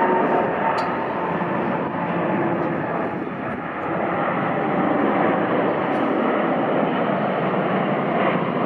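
Boeing 787-8's Rolls-Royce Trent 1000 turbofans at takeoff thrust as the airliner lifts off and climbs: a steady, loud jet noise with a faint whine early on.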